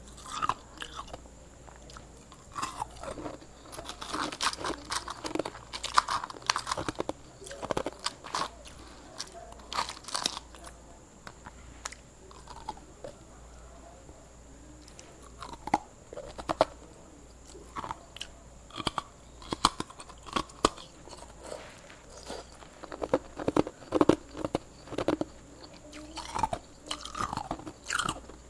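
Hard ice being bitten and chewed close to the microphone: irregular loud crunches and cracks in clusters, with short pauses between bites.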